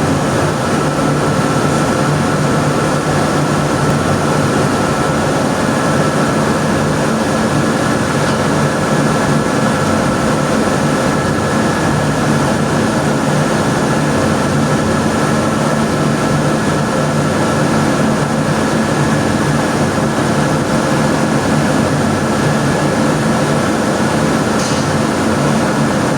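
Steady, loud drone of running machinery, a constant hum with several fixed tones held the whole time and no change in speed.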